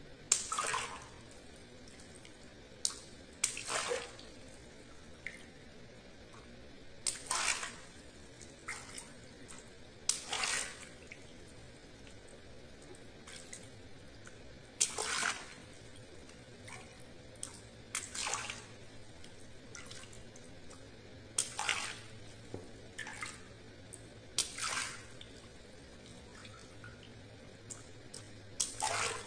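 Small water-filled latex balloons popped one after another with a pin: about nine times, each a sharp pop followed by a short splash of water, roughly every three seconds.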